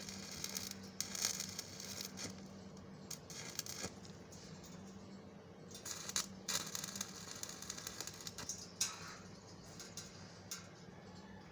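Electric arc welding crackling in irregular spurts of about a second, with a few sharp metallic clicks, over a steady low hum from the welding machine.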